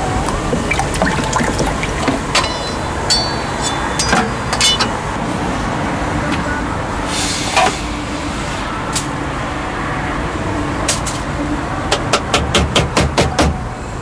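Kitchen knife chopping a banana on a plastic cutting board: a quick run of sharp cuts, several a second, near the end. Earlier come a few scattered clinks, over steady street noise with traffic.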